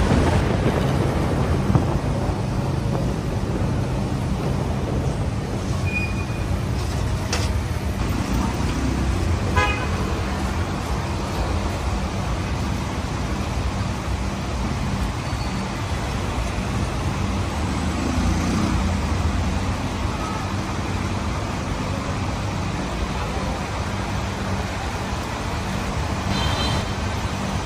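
Road traffic with engines running steadily and a few short horn toots, one about six seconds in, another near ten seconds and one near the end.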